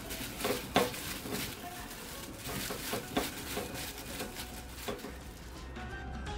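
Cubed cucumber being tossed by hand in a glass bowl: a run of soft clattering and rustling from the pieces and the plastic glove, with a few sharper knocks against the glass.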